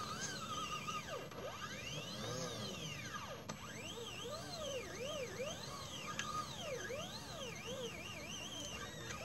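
Stepper motors of a mini CNC laser engraver running as the head traces curves. Their whine rises and falls in pitch in quick arcs as each stroke speeds up and slows down.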